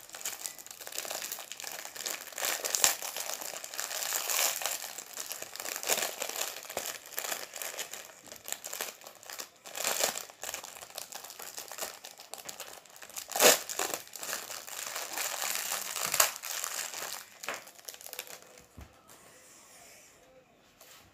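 Plastic wrapper of a card pack crinkling and tearing as it is worked open by hand, with several sharper, louder crackles along the way. The crinkling dies down near the end.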